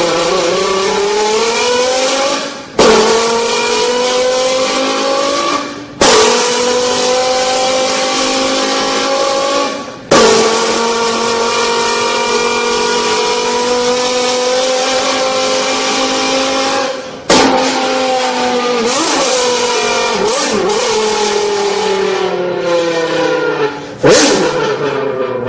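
Engine-like sound, tagged as a Lamborghini, held in long pitched stretches that slowly rise and fall in pitch. It breaks off and starts again abruptly and loudly about five times.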